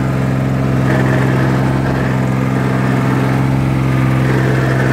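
Yanmar US300D tractor's diesel engine running steadily at an even speed.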